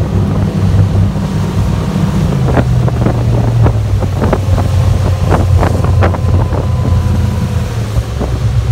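Motorboat engine running under way, its note shifting about two seconds in and again near the end, with wind buffeting the microphone. A series of sharp slaps, as of water hitting the hull, comes through the middle.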